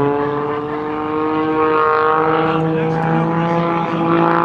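Aircraft engine running loudly overhead, a steady pitched drone that slowly rises, stepping up in pitch about two seconds in.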